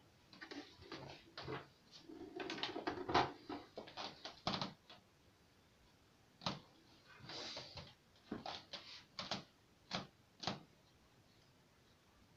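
Handling noise from a plastic electronic drum pad unit, its cables and a mains adapter being picked up, turned over and set down: a string of light plastic clicks and knocks with brief rustling, in two bursts separated by a pause of about a second and a half.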